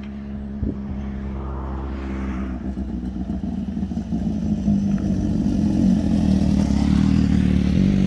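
Motorcycle engines approaching, their steady running note growing louder throughout.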